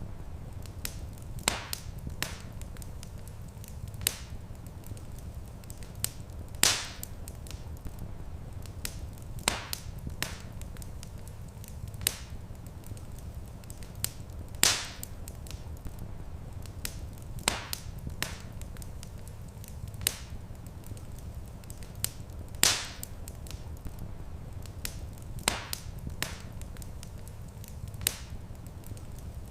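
Wood fire crackling in a stone fireplace: sharp, scattered pops every second or two, a few of them much louder, over a steady low rumble.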